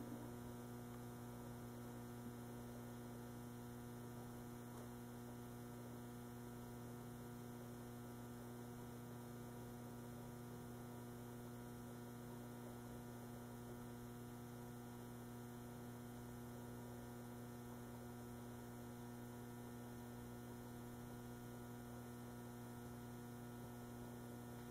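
Faint, steady electrical mains hum, a low buzz with a stack of higher overtones that never changes.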